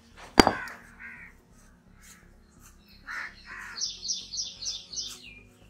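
A sharp knock of a stone roller set down on a stone grinding slab about half a second in, the loudest sound. Crows cawing twice around three seconds in, followed by a quick run of about six high chirps from a bird.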